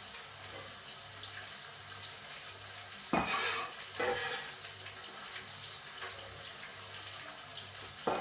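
A kitchen tap runs briefly twice, about three and four seconds in, over a faint steady hum.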